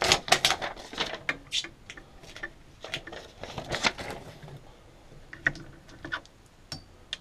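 Paper release liner being peeled off a Musselbound adhesive tile mat and handled: a run of irregular rustling and crackling. Near the end come a few light clicks as a mesh-backed sheet of mosaic tiles is picked up.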